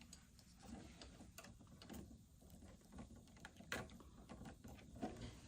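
Faint scattered clicks and rustles of plastic parts and cables being handled and fitted into a cable clip, with a sharper click about three and a half seconds in and another near the end.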